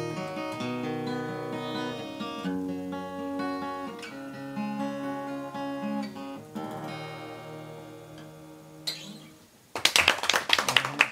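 Acoustic guitar playing the closing chords of a song, ringing out and fading away. Clapping starts suddenly near the end.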